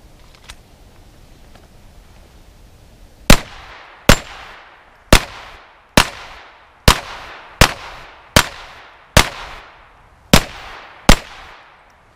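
.22 LR semi-automatic pistol fired ten times at a steady pace, a little under one shot a second, starting about three seconds in; each sharp crack trails off briefly.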